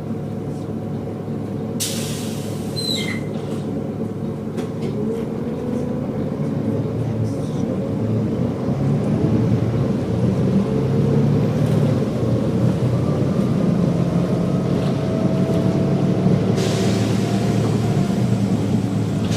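Volvo B7TL double-decker bus running under way, its engine getting louder as it pulls, with a loud whine that climbs steadily in pitch as it gathers speed. A short hiss about two seconds in and a longer one near the end.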